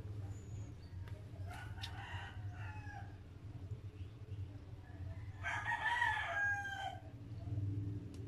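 A rooster crowing once, about five and a half seconds in, a wavering call lasting about a second and a half, with fainter shorter calls about two seconds in. A steady low hum runs underneath.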